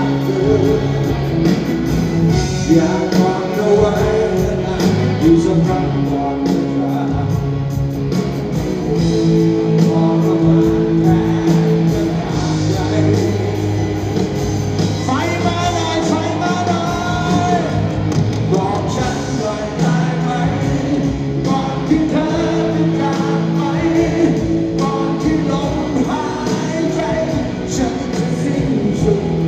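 Live Thai rock band with orchestra playing a ballad: a male voice sings in Thai over electric guitar, bass and drums, heard in a large hall.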